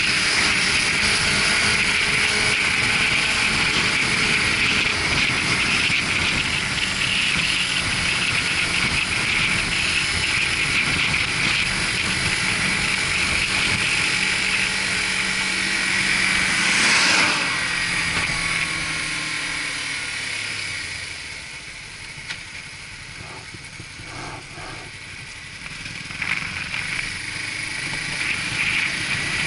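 Suzuki GW250 Inazuma motorcycle being ridden, its engine running under a steady rush of wind noise. About halfway through the engine note drops as the bike slows and the sound goes quieter for several seconds, then it picks up again near the end.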